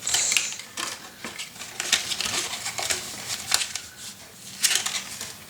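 Cardstock and paper being handled and folded on a table: a brief rustle, then scattered light taps and clicks.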